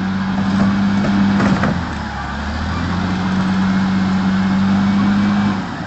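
Truck engine held under heavy load in two long, steady pushes, easing off briefly about two seconds in and dropping away near the end. The truck is being driven on without stopping so that it does not sink deeper into the ground it is breaking through.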